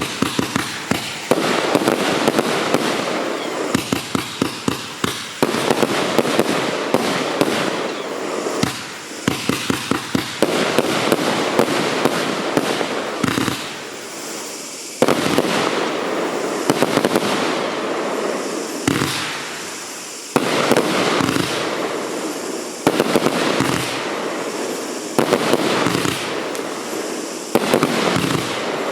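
Fanned 168-shot compound firework battery firing volley after volley. Quick runs of sharp bangs alternate with stretches of dense crackling noise, each stretch starting suddenly.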